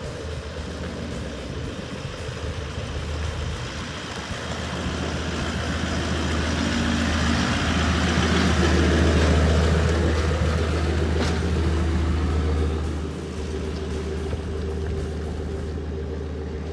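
Toyota LandCruiser four-wheel drive's engine pulling a boat trailer up a concrete boat ramp, growing louder as it passes close about eight to twelve seconds in, then easing off as it drives away.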